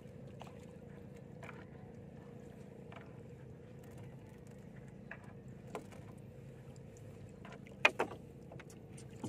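Monofilament gill net being hauled by hand over the side of a small wooden outrigger boat, with scattered light clicks and knocks as net, floats and weights hit the hull, and a louder double knock near the end, over a steady low hum.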